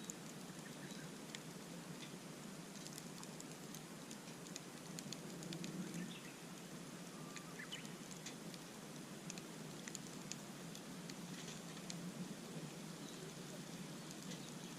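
Wood campfire crackling, with scattered small pops throughout, and a few faint small-bird chirps in the background.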